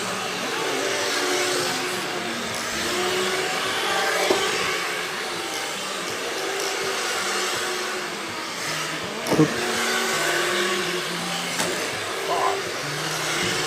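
Several electric RC race cars running laps together, their motors whining steadily with many overlapping pitches that rise and fall as the cars accelerate and brake. A short louder rising whine stands out about nine seconds in.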